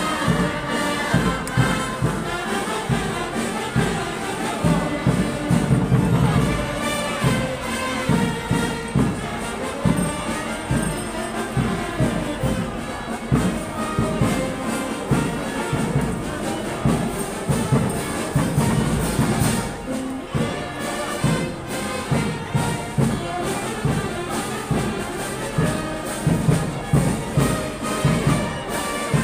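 Brass band playing, with a steady beat.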